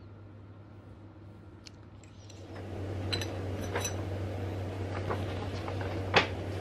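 A metal fork cutting a slice of cheesecake and clinking on the plate: a few sharp taps, the loudest about six seconds in, over a steady low hum. The first couple of seconds hold only the quiet hum.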